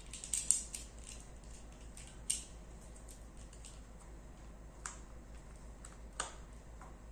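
Small metal and plastic clicks of a bipod being fitted and clamped by hand onto a rifle's sling-swivel stud: a quick cluster of clicks about the first second, then single clicks every second or two, over a faint low hum.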